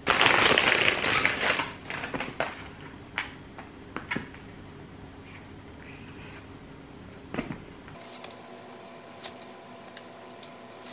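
A serrated bread knife sawing through a flaky croissant, the crust crackling and crunching loudly for about a second and a half. Then scattered light taps and knocks as bread and knife are handled on a plastic cutting board.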